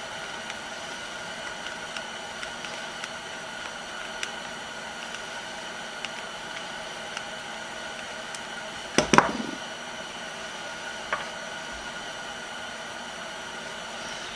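Parts of a cast-iron machinist vise being handled during disassembly: a few light clicks and, about nine seconds in, a loud double clunk with a short ring, over a steady background hum.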